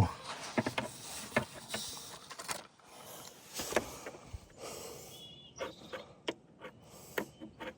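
Scattered clicks and knocks of hand tools, a ratchet with a long extension, working at a differential plug, at irregular intervals with short pauses between.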